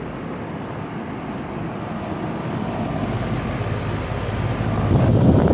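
Outdoor central air-conditioning condensing units running in cooling mode: a steady whoosh and hum from the fans and compressors, growing louder about five seconds in.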